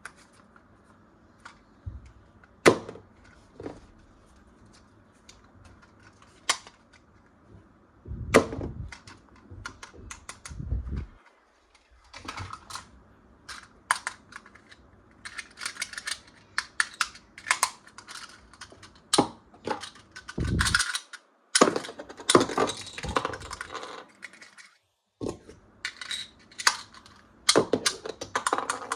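Plastic toys and packaging handled during unboxing: a run of sharp clicks and taps, with stretches of rustling and crinkling in the middle.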